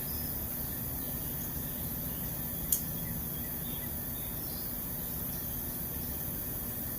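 Outdoor ambience with a few faint, scattered bird chirps over a steady hiss and low hum. A single sharp click sounds a little under three seconds in.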